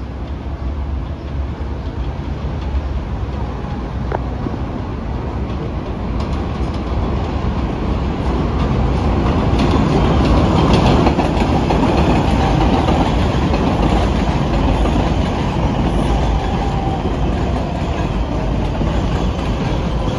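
New York City subway train (an IRT 4 train) running on steel rails with wheel clatter, growing louder over the first ten seconds or so and holding near that level to the end.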